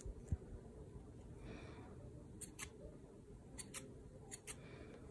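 Metal scissors snipping through a small tied bundle of yarn: three quick double clicks, about a second apart, in the second half. A soft low thump comes about a third of a second in.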